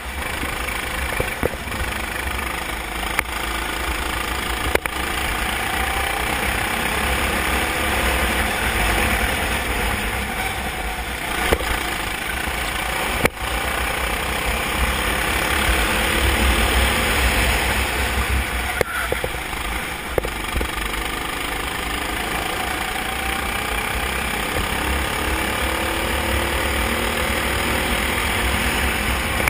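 Onboard sound of a go-kart at racing speed: the kart's engine rising and falling in pitch through the corners under a steady rushing noise, with a few brief sharp knocks.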